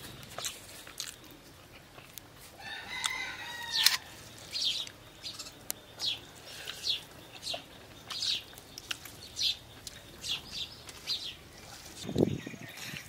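A rooster crows once, about three seconds in. A bird then chirps over and over in short, high, falling notes, a little under two a second.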